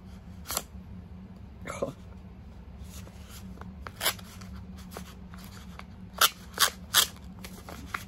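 A paper envelope being slit open with a letter opener that is not cutting well: scattered short rasping strokes of the blade through paper, with three louder ones in quick succession near the end.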